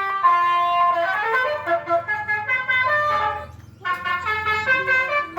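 Electronic 'basuri' musical vehicle horn playing a quick melody of stepped, horn-like notes, breaking off briefly about three and a half seconds in and then starting again.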